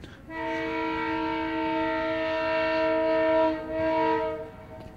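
Locomotive air horn sounding one long chord of several notes for about four seconds, some of the notes stopping about a second before the rest.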